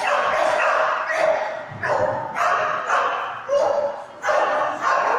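A dog barking over and over while it runs an agility course, about eight sharp barks in quick succession, echoing in a large hall.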